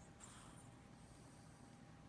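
Near silence: faint room tone, with a soft hiss about a quarter of a second in.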